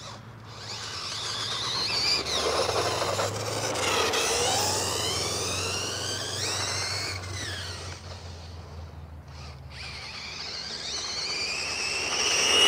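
ARRMA Typhon 6S V5 RC car running on a 6S lipo: the brushless motor and drivetrain whine rises and falls in pitch as the car speeds up and slows, over a rough noise, growing louder near the end.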